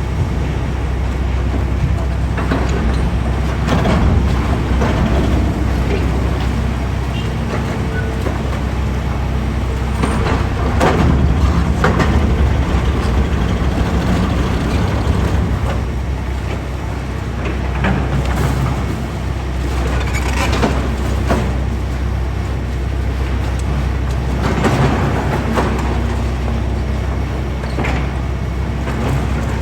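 Heavy demolition machinery running steadily with a deep engine drone. Irregular crunches and clanks of concrete being broken come over it several times.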